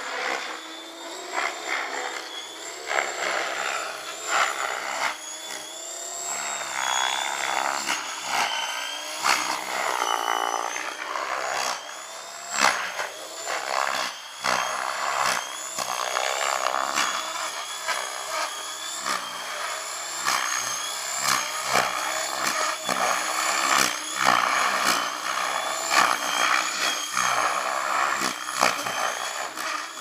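Electric radio-controlled helicopter (Compass Atom 6HV) in flight, its motor and rotor whine rising and falling in pitch. Gusts of wind buffet the microphone throughout.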